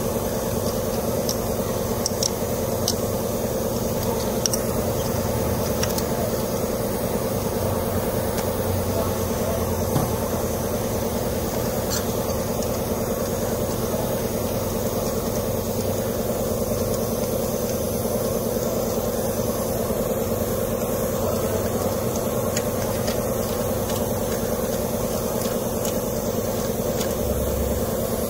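Steady mechanical hum of a running machine, with a few faint light clicks.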